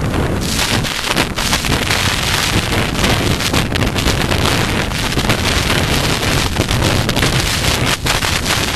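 Heavy wind buffeting on the microphone of a helmet-mounted camera while the horse moves at speed across open grass, a loud, steady rumbling rush.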